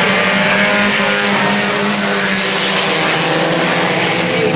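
A pack of IMCA Sport Compact race cars running at speed under green, several engine tones overlapping steadily.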